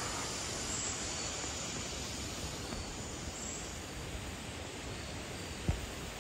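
Steady outdoor woodland background hiss with no clear single source, broken once by a brief knock about five and a half seconds in.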